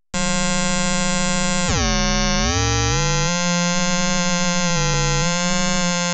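Behringer 2600 Blue Marvin analog synthesizer holding one harsh, bright sustained note. About two seconds in, its pitch dips sharply and swoops back up, then it holds steady again.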